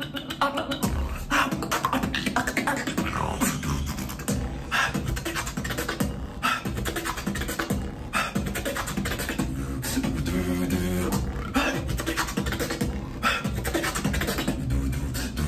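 Solo beatbox performance: deep vocal bass under sharp snare-like hits in a steady beat, with a held low hummed tone a little past the middle.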